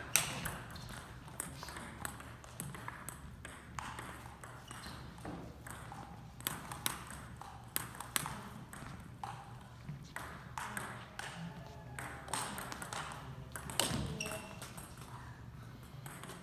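A table tennis ball clicking again and again as it bounces and is struck on the table, paddles and floor, in an irregular run of sharp ticks with a louder hit about 14 seconds in.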